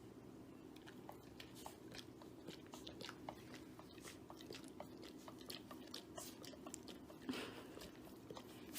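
Faint chewing and crunching: many small irregular clicks over a low steady room hum.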